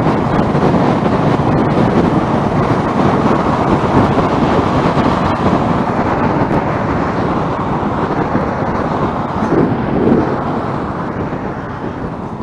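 A motorcycle riding at speed in traffic: steady engine and road noise mixed with wind rush on the microphone, swelling briefly about ten seconds in and growing quieter near the end.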